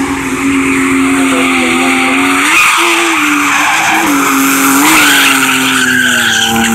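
BMW E30 Touring drift car sliding sideways: the engine is held at high revs, dipping briefly and picking up again three times, over a continuous screech of spinning rear tyres.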